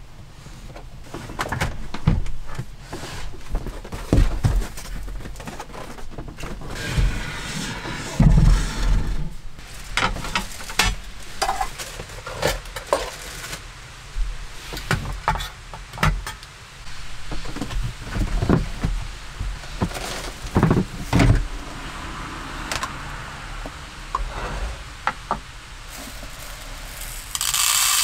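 Household handling sounds in a small room: bedding being rustled and moved, then knocks, thumps and clinks as dishes, a ceramic pot and a metal bowl are set down on a wooden table. Near the end, dry rice grains pour from a plastic container into a measuring cup with a brief hiss.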